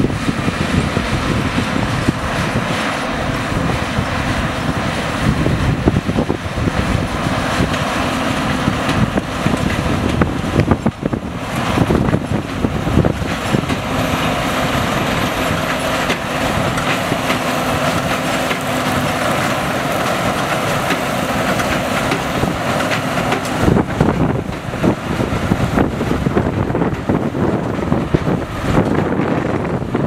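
Fendt 724 tractor's six-cylinder diesel running under load, pulling a New Holland BigBaler 890 large square baler that is working as it picks up and bales straw. The noise is steady, with a steady hum through the middle of the stretch.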